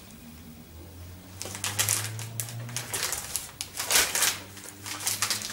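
Plastic packaging rustling and crackling as shopping items are handled and set down, in an irregular run of crackles starting about a second and a half in, loudest about four seconds in.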